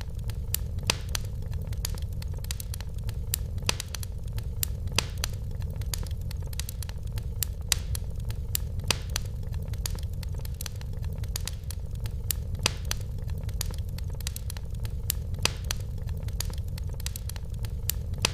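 Wood fire burning in a fireplace: irregular crackles and pops over a steady low rumble of the flames.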